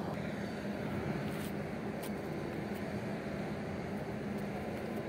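A 2,086-TEU container ship's engines and machinery running with a steady low drone as the ship passes close by, with a few faint ticks.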